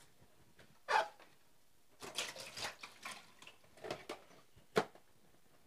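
A plastic colander of washed chilies, shallots and garlic being handled over a stainless steel sink, the tap off: scattered short knocks and drips of draining water, with one sharp knock near the end.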